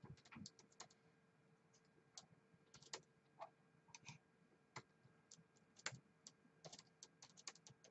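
Faint, irregular keystrokes on a laptop keyboard: someone typing.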